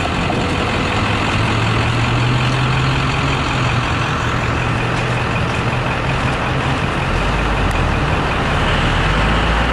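Road traffic: a steady rush of passing vehicles with the low hum of a heavy vehicle's engine, a deeper engine hum coming in about seven seconds in.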